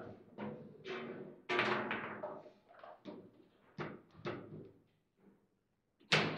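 Table-football game in play: an irregular run of about a dozen sharp knocks and bangs as the ball is struck by the rod figures and hits the table walls, each with a short hollow ring. The hardest bang comes about six seconds in.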